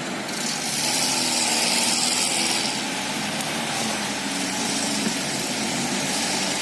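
UAZ Bukhanka van's engine running off-road, its pitch rising and falling with the throttle. A hiss is loudest in the first couple of seconds.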